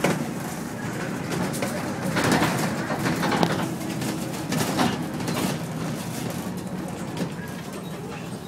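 A vehicle in motion, heard from inside: a steady low hum of running and road noise, with a few sharp rattles and knocks in the middle.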